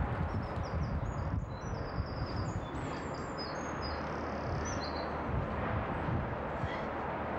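A small bird chirping a quick run of short, high notes for about five seconds, over a constant low rumble of outdoor background noise.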